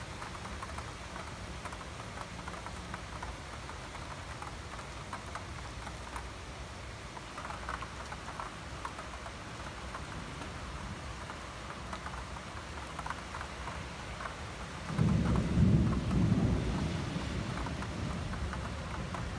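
Steady rain with scattered drops ticking close by. About fifteen seconds in, a loud peal of thunder rumbles low, swelling a few times over a couple of seconds and then fading back under the rain.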